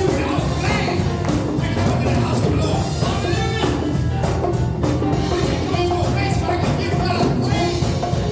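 Live worship music with a full band, a steady drum beat and singing.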